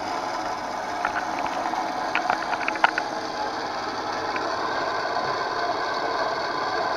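Washing-machine collector (universal) motor driving a drill's reduction gearbox and chuck, switched on through a speed controller and running steadily with a mechanical gear noise. A few sharp clicks come between about one and three seconds in.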